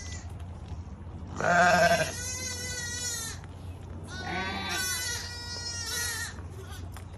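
Shetland sheep bleating, several calls in a row, the loudest about a second and a half in.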